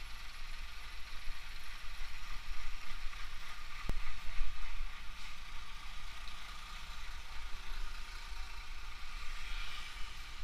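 Motorcycle running as it rides slowly through congested traffic, with a steady low rumble of wind and road noise on the microphone. A single sharp click comes about four seconds in.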